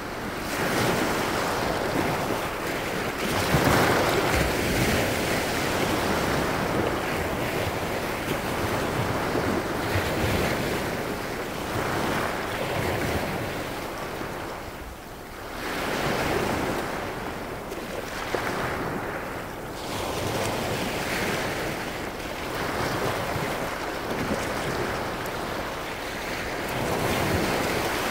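Small Baltic Sea waves breaking at the shoreline and washing in over pebbles, the surf swelling and easing every few seconds.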